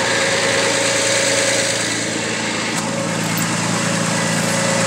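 Ford 300 inline-six (4.9 L) engine idling steadily while it warms up.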